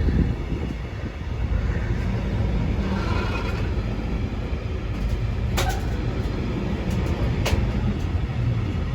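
Class 66 diesel locomotive's two-stroke V12 engine running with a steady low rumble, with two short sharp clicks a couple of seconds apart in the second half.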